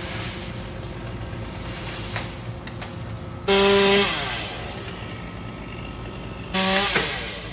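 Chainsaw idling, revved twice for about half a second each, the pitch sliding back down after each rev.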